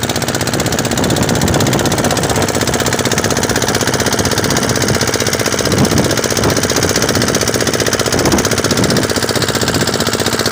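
A wooden fishing boat's inboard engine running steadily under way, a loud, fast, even mechanical pulse.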